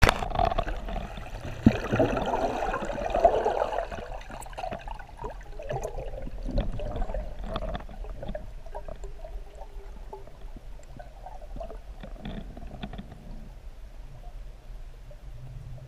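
Water sloshing and bubbling, heard underwater through the camera's housing as a freediver duck-dives. It is loudest for about the first four seconds, then fades to fainter gurgling with scattered small clicks.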